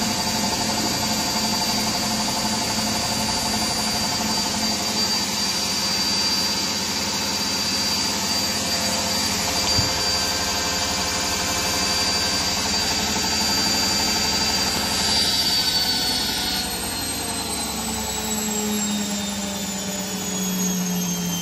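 BEKO WRE6512XWWE front-loading washing machine on a high-speed spin at 1000 rpm: a steady loud rush of the drum with a high motor whine. The spin is the one where this machine vibrates heavily despite replaced shock absorbers, drum and feet. About fifteen seconds in the whine begins to fall in pitch as the spin slows.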